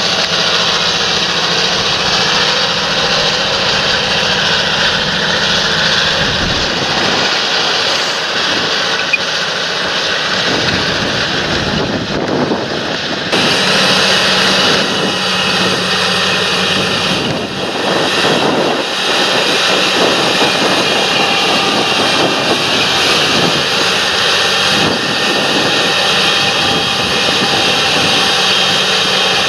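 Large John Deere tractor's diesel engine running steadily under heavy field work, with a steady high whine over the engine note.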